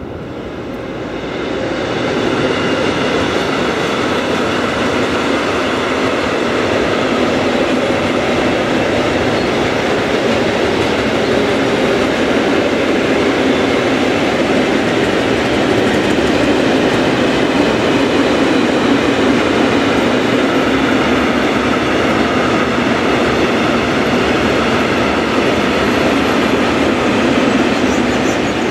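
Freight train wagons rolling past: a steady rumble of wheels on rail that builds over the first couple of seconds and then holds, with faint steady high tones ringing over it.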